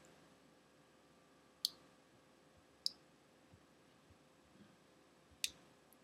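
Three short, sharp clicks, a second or more apart, from a Leatherman Super Tool 300 multitool being handled.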